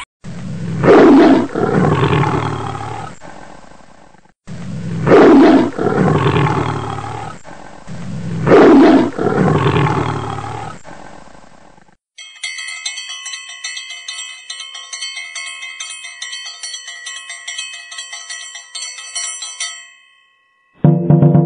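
A loud animal roar, the same roaring passage heard three times about four seconds apart, followed by bright chiming music with a quick steady pulse.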